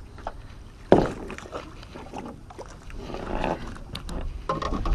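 A hooked snook being landed over the side of a boat: a sudden loud slap about a second in, then scattered knocks and rustling over a steady low rumble.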